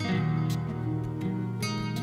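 Background instrumental music, with new notes struck right at the start and again about a second and a half in.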